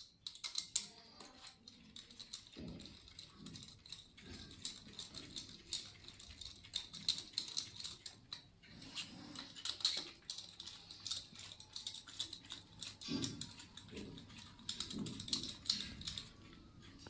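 Hand tools clicking and tapping irregularly on the metal of an engine's cylinder head, with gloves rustling, as the compression gauge is moved from the first cylinder to the second.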